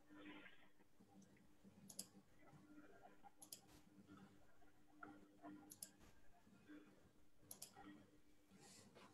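Faint computer mouse clicks, mostly in quick pairs, about five times at intervals of a second or two, over a faint steady hum.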